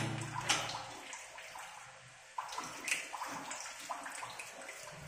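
Water in a concrete storage tank splashing and lapping as hands work at a brass float valve below the surface, with small irregular splashes and a sudden louder stretch a little over two seconds in.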